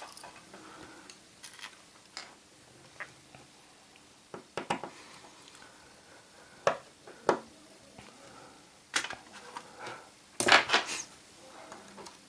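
Scattered small metallic clicks and taps from a precision screwdriver working the two tiny screws that hold down an iPhone 4's vibrator motor, with a louder cluster of clicks near the end.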